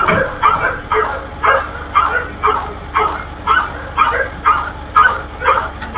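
A dog barking over and over in a steady rhythm, about two short barks a second.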